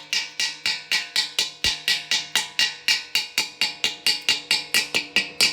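Rapid, even hammer strikes on a steel tank, about four a second, with the tank's shell ringing after each blow: a chipping hammer knocking slag off a weld that has cooled.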